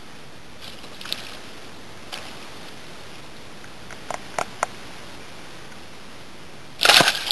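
Hooked tararira (wolf fish) thrashing at the water's surface as it is reeled to the boat: a couple of soft splashes, three sharp clicks a little after the middle, and a loud splash near the end.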